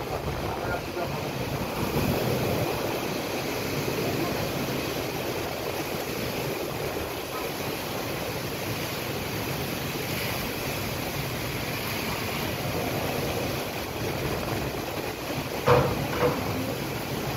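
Heavy rain falling, a steady rushing noise, with two short louder sounds near the end.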